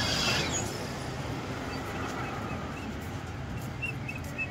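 Steady outdoor traffic noise from a city road. Near the end a small bird chirps repeatedly, about three short high chirps a second.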